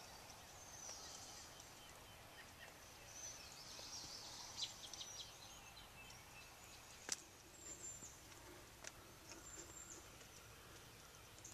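Near silence of open country, with faint, high songbird chirps here and there and a couple of sharp clicks, one about four and a half seconds in and a louder one about seven seconds in.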